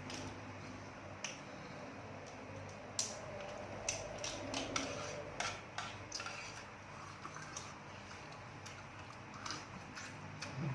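Scattered light clicks and clinks of eating utensils on dishes during a meal, most of them between about three and six seconds in, over a low steady hum.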